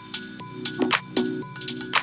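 Background music: an electronic track with a steady beat of sharp drum hits over sustained synth notes.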